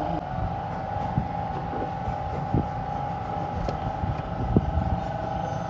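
Steady mechanical drone from a running engine or machine, with irregular light knocks and clicks of hand work on a car's front suspension.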